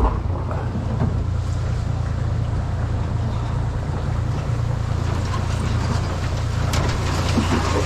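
Small boat's outboard motor running steadily, a constant low drone.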